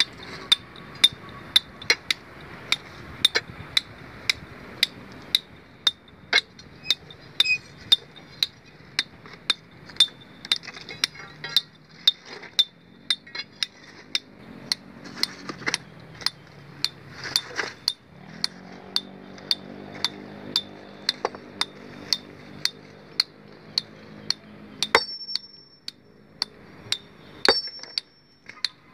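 Steady hand hammering to split a large stone boulder: sharp metallic strikes about two a second, each with a short ring, with a brief pause near the end.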